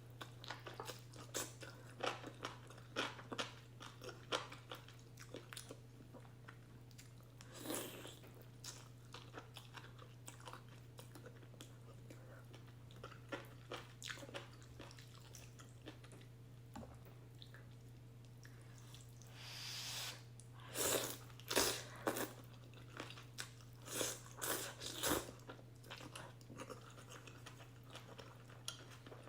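Close-miked eating of beef and egg ramen: a steady run of small wet chewing and mouth clicks. About twenty seconds in there is a rushing sound lasting about a second, then a cluster of louder bites. A steady low hum sits underneath.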